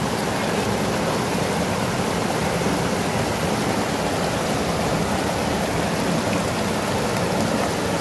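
River rapids rushing over and around rocks: a steady, loud roar of churning white water.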